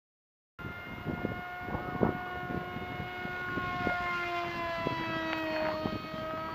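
Electric motor and propeller of a radio-controlled plane in flight, a steady high whine that drifts slightly in pitch, starting just after half a second in, with scattered clicks.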